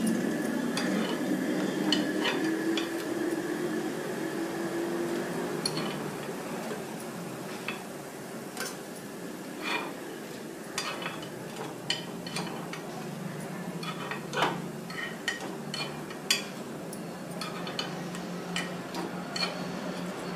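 A metal utensil clicking and scraping against a nonstick appe pan as cooked rava appe are turned and lifted out of its cups: many short, irregular clicks over a steady sizzling hiss.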